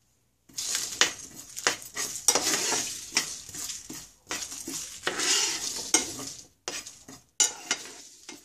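A metal spoon stirring and scraping whole spices (coriander seeds, cumin, dry red chillies and garlic cloves) around a nonstick frying pan as they roast, the seeds rattling and the spoon clicking against the pan. The stirring starts about half a second in.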